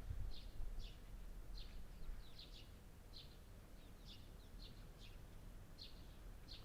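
A small bird chirping over and over: about a dozen short, high chirps, irregularly spaced at roughly two a second, faint over a low background rumble.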